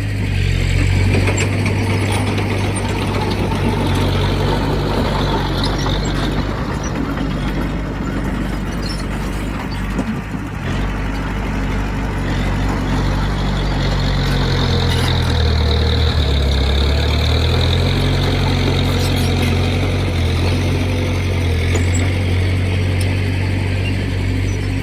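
Diesel engine of heavy earthmoving equipment running steadily. Its note drops for a couple of seconds about two-thirds of the way through, then picks up again.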